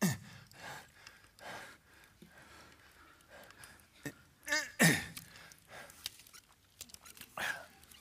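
Animal-like breathing and cries voiced by puppeteers for a hyena puppet they are operating. A falling cry at the start, a short pitched call followed by the loudest falling cry about five seconds in, and another cry near the end.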